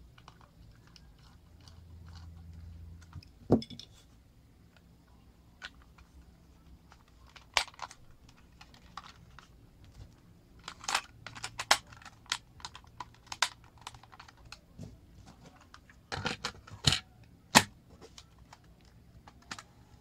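Hands reassembling a small plastic portable cassette player: a small screwdriver turning a screw, and the plastic case parts being handled and snapped together. The result is scattered sharp clicks and taps, with a loud click a few seconds in and clusters of clicks later on.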